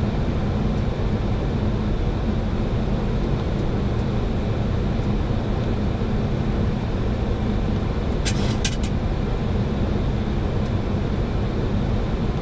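Steady rush of airflow and engine noise inside a Boeing 737-800 cockpit on final approach, with a low steady hum underneath. A short run of a few sharp clicks comes about eight seconds in.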